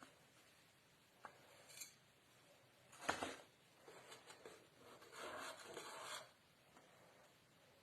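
Quiet kitchen handling: a few short scrapes and rubs of a utensil against a dish, the loudest a brief scrape about three seconds in and a longer rub near the five-second mark.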